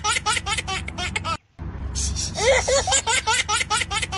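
A laughter sound effect played on a loop: the same few seconds of rapid giggling repeat. It cuts off abruptly for a moment about a second and a half in, then starts over.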